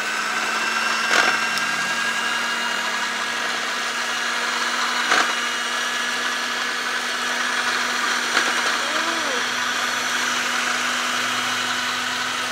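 Electric hand mixer running steadily, its twin beaters whipping an ice-cream mix in a plastic bowl until it foams up. A steady motor hum with three sharp knocks spread through it.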